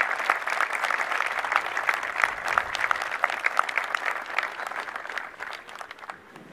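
Crowd applauding, with many single claps standing out, dying away near the end.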